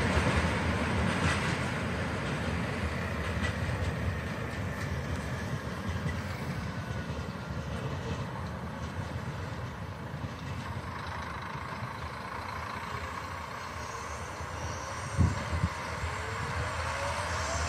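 A train running along the track, a steady rumble of wheels on rail that slowly eases. A faint whine glides down in pitch a few seconds in, another glides up near the end, and there is a brief knock shortly before the end.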